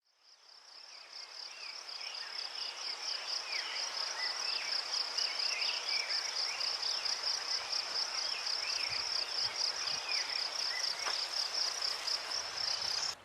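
Nature ambience: an insect, cricket-like, chirping steadily at about five pulses a second, with short bird chirps over it. It fades in over the first couple of seconds and cuts off abruptly at the end.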